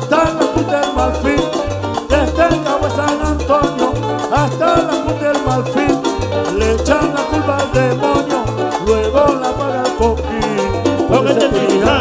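Live son band playing, with plucked upright bass notes keeping a steady pulse under guitar and hand percussion; no words are sung.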